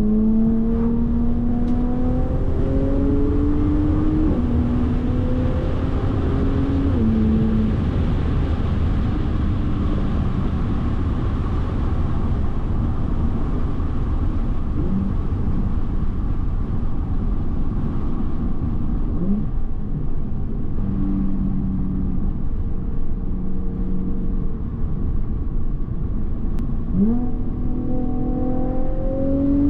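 Supercharged Audi V6 engine accelerating through upshifts: its note climbs and drops back three times in the first seven seconds. It then runs steadily with road noise, and climbs in pitch again near the end under acceleration.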